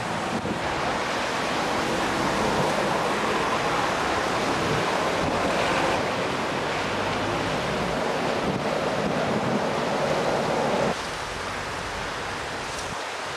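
Steady rushing noise of wind on the microphone over open water, which drops suddenly about eleven seconds in.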